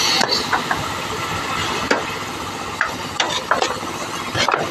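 Water spraying from a hose onto a steel-tube rickshaw frame: a steady hiss with scattered knocks and clicks at irregular times.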